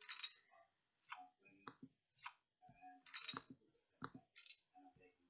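Online poker client sound effects: a string of short clicks and a few brighter chip-like rattles as a card is dealt and chips are pushed across the table.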